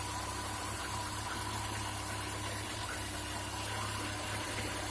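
Chevrolet Niva's four-cylinder engine idling steadily with the air-conditioning drive belt removed, running clean with no foreign noise: the sign that the noise came from a failed bearing in the AC compressor's electromagnetic clutch pulley.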